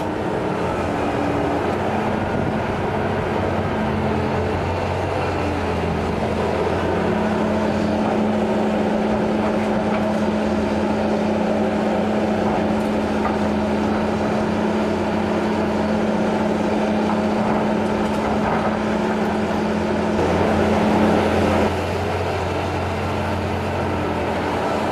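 Diesel engine of a Liebherr R 944 C crawler excavator running steadily under working load during demolition. It swells briefly about twenty seconds in, then drops back suddenly.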